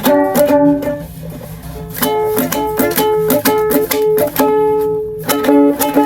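Ukulele music: plucked and strummed chords in a steady, bouncy rhythm.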